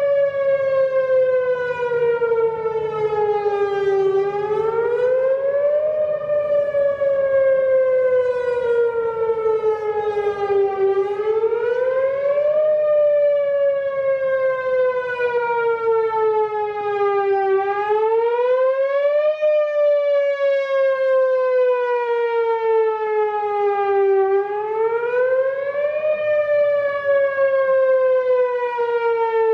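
Whelen WPS-4004 electronic outdoor warning siren, tuned to 530 Hz, sounding its whoop signal for a Halloween trick-or-treating activation. The tone climbs quickly over about two seconds, then slides slowly back down, repeating about every six and a half seconds.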